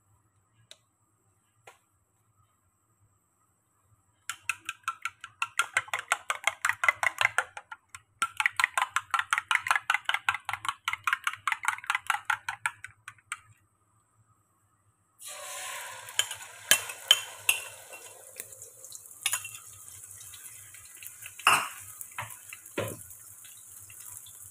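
Beaten eggs whisked in a bowl with rapid, even strokes, in two spells with a short break between them. About fifteen seconds in, the egg goes into hot oil in a stainless steel pan and fries with a steady sizzle, with a few sharp clinks of a utensil on the pan.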